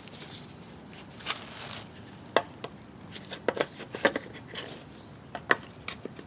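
Plastic and metal parts of a new power steering pump and reservoir being handled: scattered sharp clicks and light knocks, a dozen or so, irregularly spaced.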